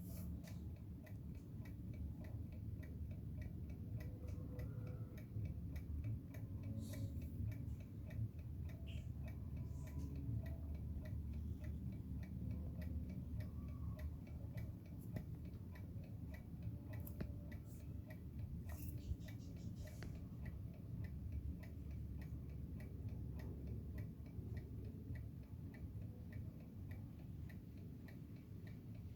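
Antique Kienzle mechanical alarm clock ticking steadily at a quick, even beat, over a low steady background rumble.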